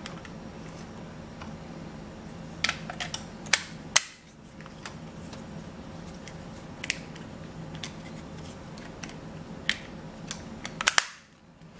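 Hard plastic clicks and snaps from a toy's AA battery box being handled and its cover worked off: a few scattered sharp clicks, the loudest about four seconds in, and a quick run of clicks near the end.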